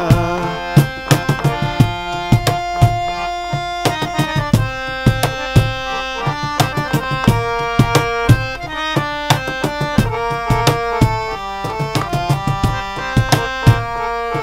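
Instrumental interlude of a Bengali folk song: a harmonium plays the melody in held reed notes over a cajon beat.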